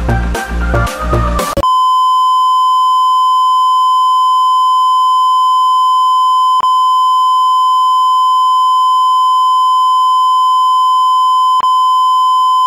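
Background electronic music with a steady beat that cuts off about a second and a half in. It is replaced by a single steady, unbroken electronic beep tone, with two faint clicks about five seconds apart.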